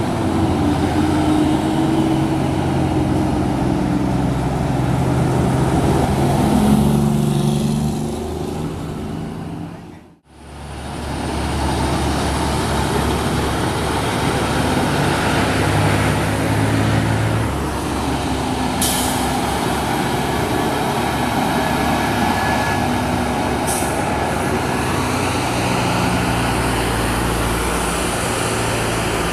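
Diesel engines of heavy trucks pulling uphill as they pass one after another, with steady engine drone throughout. The sound drops out briefly about ten seconds in. Later come two short hisses of air from air brakes.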